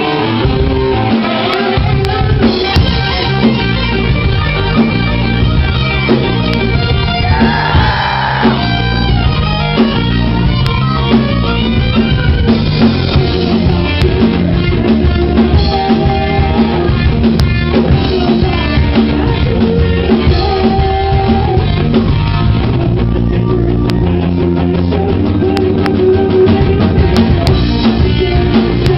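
A rock band playing live: electric guitar and bass over a drum kit, in a dense instrumental passage.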